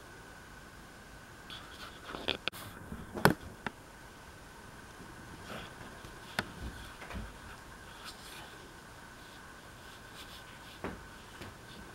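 Scattered soft rustles, scrapes and a few sharp clicks of a cat moving and pawing about on a quilted bed comforter, busiest about two to four seconds in. A faint steady high whine runs underneath.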